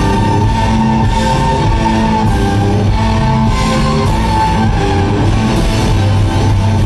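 Live rock-blues band playing: electric guitars over bass and drums, with a guitar holding long sustained notes and a steady drum beat.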